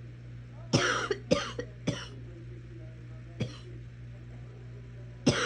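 A sick person coughing: three quick coughs about a second in, a single cough in the middle, and another cough starting at the very end, over a steady low hum.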